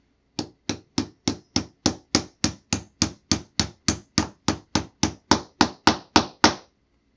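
Small brass-headed gunsmith's hammer tapping the supplied magwell pin down through a pistol's grip frame, driving out the old mainspring housing pin. About twenty quick, even taps, roughly three and a half a second, that stop shortly before the end.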